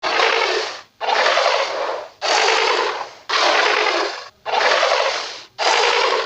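Creature sound effects for a dinosaur, Paradeinonychus: a series of six breathy hissing bursts, each just under a second long, about a second apart.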